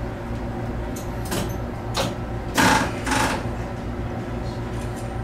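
Steady electrical hum with several held tones inside the cab of an ET127-series electric train, broken by a few short bursts of noise near the middle, the loudest a little past halfway.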